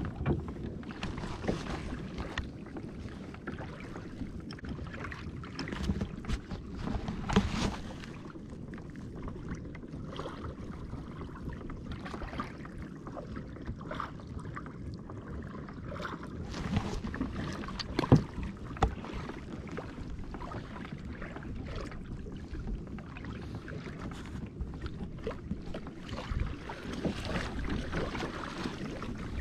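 Water lapping and sloshing against a kayak hull, with a few short knocks scattered through it, the sharpest about eighteen seconds in.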